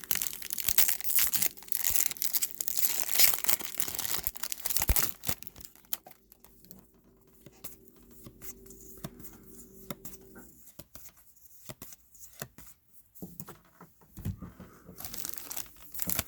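Trading card pack wrappers being torn open and crinkled, loud and continuous for the first five seconds, then quieter handling with scattered light clicks, and crinkling again near the end.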